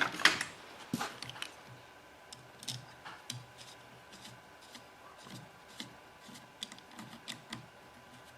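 Small metal carburetor parts and hand tools being handled, giving light, irregular clicks and taps, with a couple of louder knocks in the first second.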